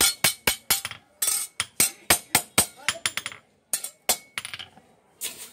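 Hand hammer striking a curved steel cutter blade on a small anvil: a quick run of sharp, ringing metal clinks, about three to four a second, with a brief pause a little past the middle before the strikes resume.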